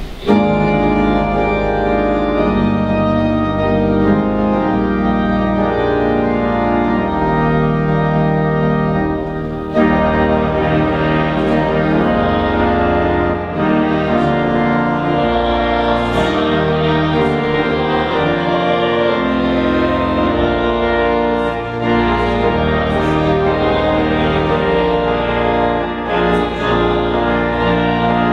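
Church organ playing sustained chords in slow phrases, with short breaks between phrases.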